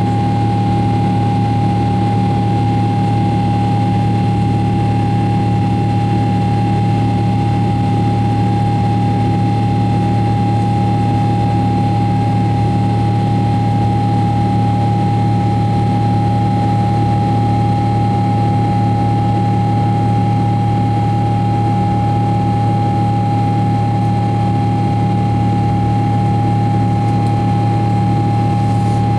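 Boeing 777-300ER's GE90-115B turbofan engines heard inside the cabin in flight: a loud, steady rush of engine and air noise with a constant whine on one pitch over a low drone.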